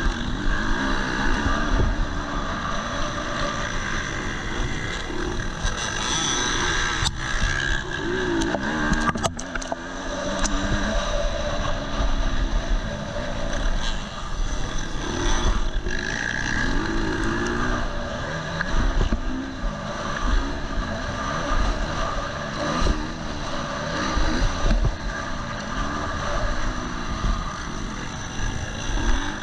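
KTM 250 SX-F four-stroke single-cylinder motocross engine revving up and down under hard acceleration and shifting while racing. A few sharp clicks about seven to nine seconds in.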